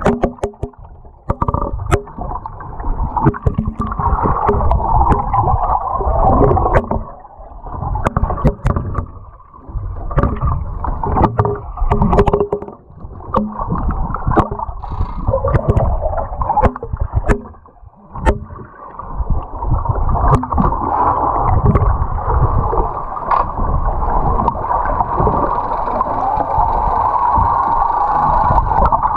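Lake water churning and bubbling, heard muffled through a submerged camera, surging and easing, with many scattered sharp clicks and knocks.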